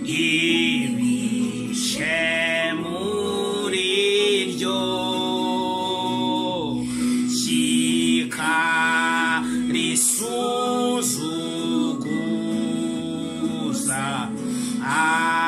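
A man singing a slow gospel song, mostly unaccompanied, in long held and sliding notes, over a steady low tone.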